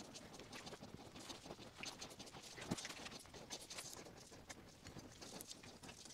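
Faint, irregular scratching and tapping of a brush laying brush-on seam sealer along a sheet-metal fender edge, with one sharper tick a little under three seconds in.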